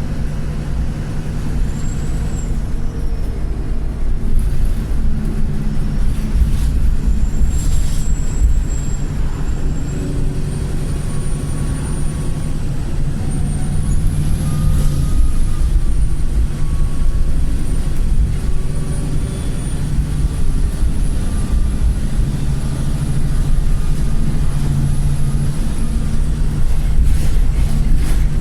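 Diesel engine of a Wright Pulsar single-deck bus running under way, heard from inside the bus. Over it is a thin, high-pitched turbocharger whistle that climbs in pitch partway through and holds for most of the rest: the squealing turbo, on a turbo described as cracked.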